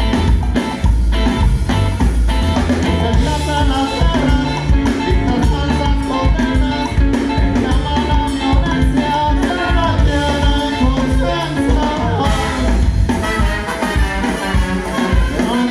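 A live band playing an upbeat ska song with bass, drums and other instruments during a sound check.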